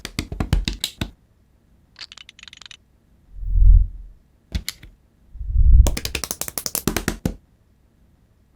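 Runs of fast, sharp clicking, like a rapid rattle, broken by two deep thuds about two seconds apart, the second followed by more rapid clicking.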